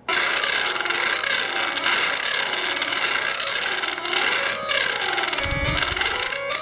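Piano notes played in fast runs, many keys at once, at full volume through a Google Pixel XL's built-in speaker. They are buried in loud popping, crackling static: the speaker distortion that the owner reports on Pixel phones and suspects is a system-wide fault.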